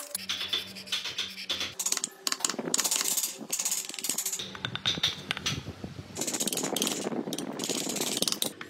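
Hand wood carving: a small gouge and chisel cutting and scraping into the wood of a relief panel, a rapid run of clicks and scrapes.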